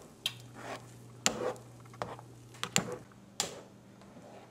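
A cooking utensil knocking and clinking against a pot during stirring, about five sharp strikes spread over a few seconds, over a faint steady low hum.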